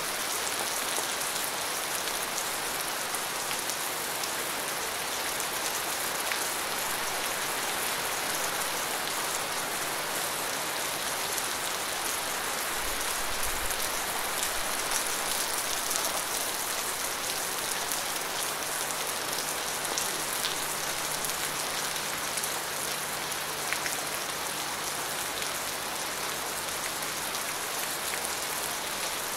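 Steady rain falling: a dense, even hiss, strongest in the high range, with sharp ticks of single drops scattered through it.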